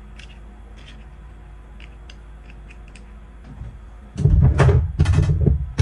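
Metal gun parts being handled while a Benelli M4's bolt catch is refitted: light scattered clicks, then about four seconds in a loud run of knocks, rubbing and sharp clicks as the parts are worked together.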